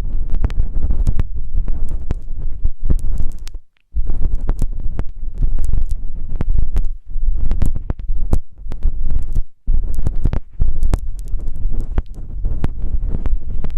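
ASMR ear massage on a microphone's ear: close rubbing that makes a muffled, rumbling sound full of crackles and clicks. It stops for a moment about four seconds in and again after about nine and a half seconds.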